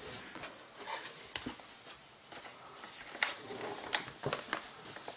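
Faint rustling of a folded paper hat being picked up and handled, with a few light sharp clicks, the sharpest about four seconds in.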